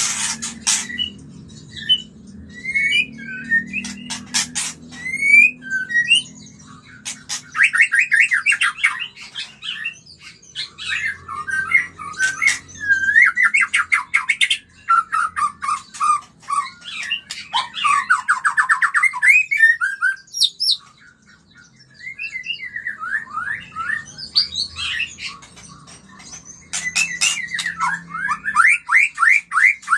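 White-rumped shama giving its breeding-season (kawin) song: a varied run of whistled glides, chirps and harsh squawky notes. Fast stuttering trills come about 8 seconds in, around 18 seconds and again near the end. Sharp clicks come at the start and around 4 and 27 seconds.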